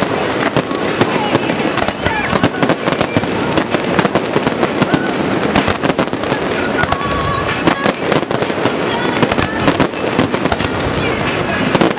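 Aerial firework shells bursting in quick succession, with sharp bangs coming several times a second and overlapping one another.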